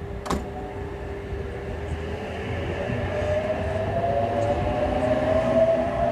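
H-set (OSCAR) electric multiple unit pulling away, its traction motors whining and rising steadily in pitch and loudness as it accelerates. A single sharp click comes just after the start.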